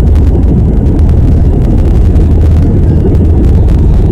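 Loud, steady low rumble inside the cabin of an Airbus A319 rolling down the runway on its takeoff run: jet engine noise and wheel rumble.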